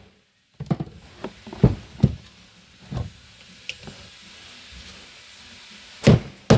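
Small hammer riveting a poly strip onto a steel ridging wing: a handful of lighter taps and knocks in the first few seconds, then one sharp hammer blow about six seconds in.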